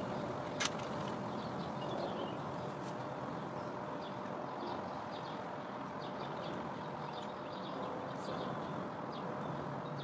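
Steady outdoor background hiss with faint, scattered high chirps and ticks, and a single click about half a second in.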